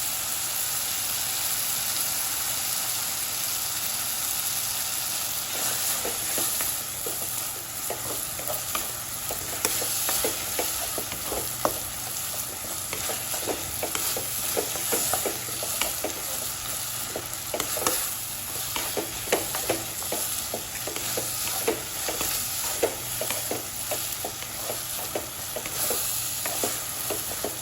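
Chopped tomatoes and onions sizzling in oil in a kadai, with a spoon scraping and clicking against the pan as they are stirred; the clicks come thick and fast from about six seconds in.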